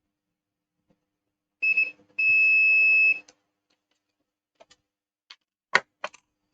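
Electronic beeper on bench repair equipment: a short beep, then a longer beep lasting about a second. A few sharp clicks follow near the end.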